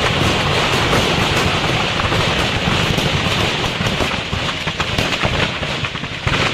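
Firecrackers going off in a burning firecracker shop: a dense, unbroken crackle of many small pops over a low rumble.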